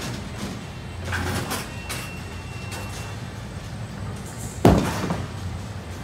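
Bowling alley din: a low rumble of rolling balls, then about two-thirds of the way through a sudden loud crash of a ball hitting pins that quickly dies away.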